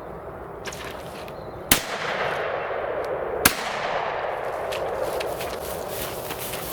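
Two shotgun shots about a second and a half apart, each trailing off in an echo.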